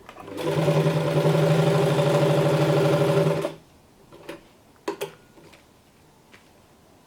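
Singer 215G portable sewing machine running at speed, stitching through two layers of leather for about three seconds, then stopping. A few short sharp clicks follow.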